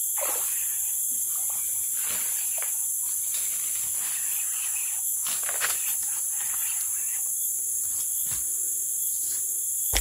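A steady, high-pitched chorus of rainforest insects, with a few brief knocks and rustles of handling over it.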